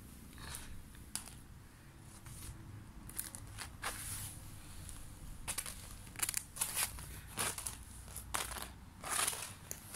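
A kitten scrabbling about on a woven plastic floor mat: irregular short scratchy rustles and crackles, coming more often and louder in the second half.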